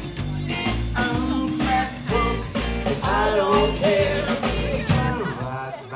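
A live rock-and-roll band playing: electric guitar over a bass line pulsing on the beat about twice a second, with drums.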